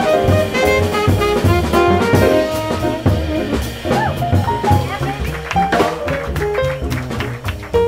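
Small jazz combo playing a swing tune live: a pitched solo line with bends and slides over walking upright bass, piano and a drum kit's ride cymbal.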